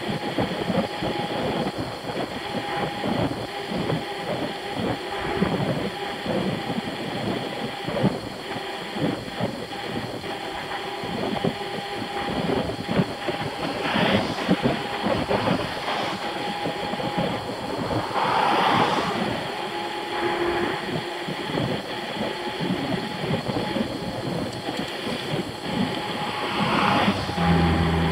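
Mountain bike coasting fast down a paved highway at about 45 mph: rushing wind and tyre rumble on the asphalt, with frequent irregular rattles and knocks from the bike and camera. A low steady hum joins near the end.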